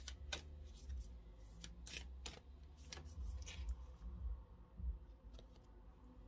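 A deck of oracle cards being shuffled and handled: a run of soft clicks that thins out after about four seconds, over a low rumble.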